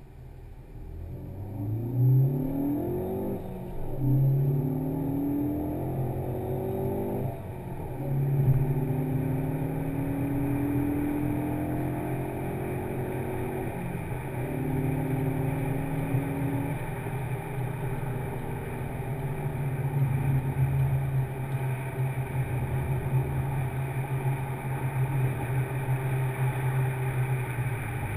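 2013 Ford Focus ST's turbocharged 2.0 EcoBoost four-cylinder, breathing through an MRT Eco-Flow axle-back exhaust and heard from inside the cabin with the Sound Symposer off. It accelerates through the gears, the engine note rising and dropping back at each of several upshifts in the first fifteen seconds, then settles into a steady cruise.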